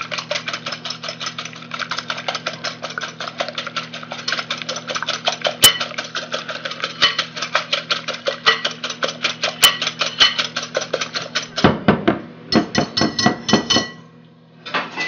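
Wire whisk beating eggs in a mixing bowl: rapid, rhythmic clicking of the wires against the bowl, about five strokes a second. The whisking stops near the end, followed by a couple of seconds of heavier knocks.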